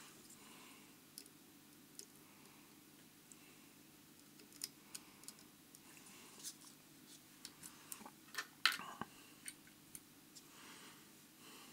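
Faint, scattered small clicks and ticks from hands working a metal fly-tying vise and handling the fly. The sharpest click comes about two-thirds of the way through, over a low steady hum.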